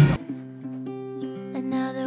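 Background music: a loud, dense passage cuts off just after the start, and a softer track takes over with held notes that change every half second or so.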